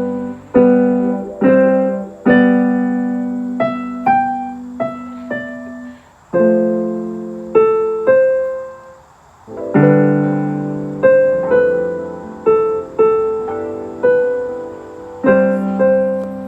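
Electric keyboard in a piano voice playing slow chords and single melody notes, each struck and left to fade.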